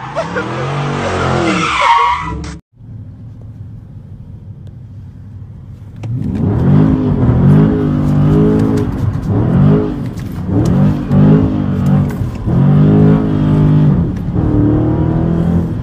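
Dodge Charger engine revving while its tyres spin and squeal in a smoky donut. After a sudden cut, a quieter stretch, then from about six seconds in the engine, heard from inside the cabin, repeatedly revs up and falls back.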